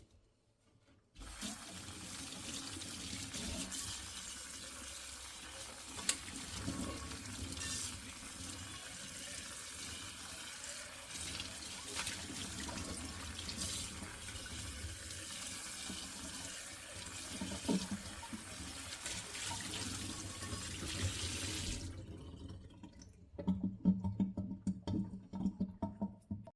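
Tap water running steadily into a sink, turned on about a second in and shut off after about twenty seconds. A few light knocks follow near the end.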